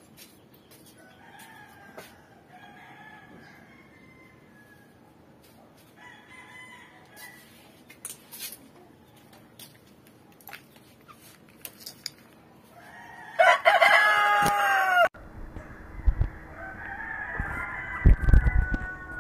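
Roosters crowing: several faint, distant crows in the first half, then one loud, close crow lasting about a second and a half, about two-thirds of the way in. Near the end, a low rumble and knocks as the phone is handled.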